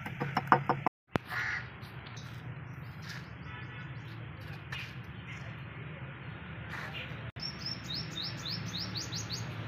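A quick run of sharp clicks or taps in the first second, then a steady low hum with high, short bird chirps, which come in a rapid run over the last two seconds.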